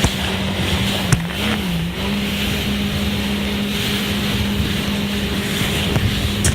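Jet ski engine running at a steady speed over water, its pitch dipping briefly about a second and a half in and then recovering, with wind and water rushing and a couple of sharp knocks near the start.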